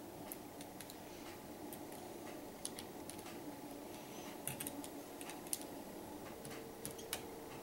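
Scattered light clicks and taps from hands handling and seating a replacement laptop LCD panel in its lid, over a faint steady hum.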